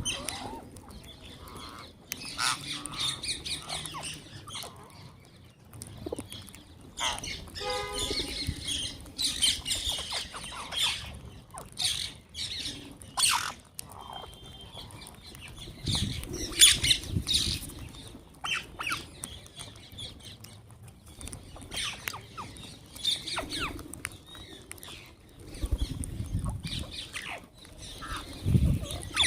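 Wild green parrots squawking in many short, overlapping calls.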